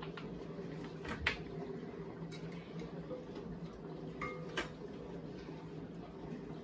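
A few light clicks and knocks from a plastic hand-cream tube being handled and squeezed over a glass mixing bowl, with a brief squeak about four seconds in, over a steady low hum.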